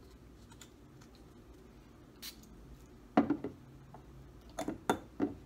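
A perfume atomizer gives a short hiss onto a paper test strip about two seconds in, then the glass bottle is set down on the table with a sharp knock, the loudest sound. A few lighter clicks and rustles of the paper strips follow near the end.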